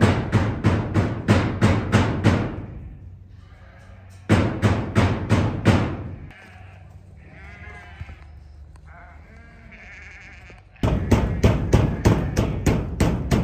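Background music with a steady beat of about four strikes a second, which breaks off twice. In the gaps, sheep bleat several times.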